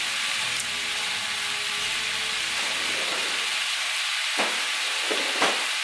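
Ground Italian sausage with freshly added diced onion and minced garlic sizzling steadily in oil in a frying pan. A few sharp clicks come near the end.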